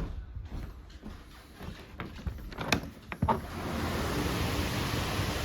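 A few clicks and knocks from a door being worked, then about three seconds in a steady hiss of storm wind and rain floods in as the door opens to the outside.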